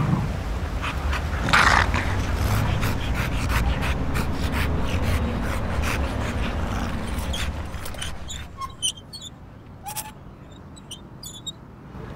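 English bulldog panting heavily, loudest about a second and a half in, then fading to faint breathing after about seven seconds.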